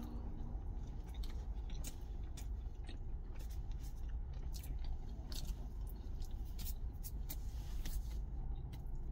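A man biting into and chewing a thick rye-bread egg-mayo sandwich with pollock roe, heard as scattered mouth clicks and small crunches. Under it runs a steady low rumble in the truck cab.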